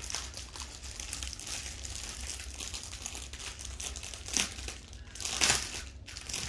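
Plastic packaging crinkling and rustling as the contents of a diamond painting kit are taken out, with louder rustles about four and five and a half seconds in.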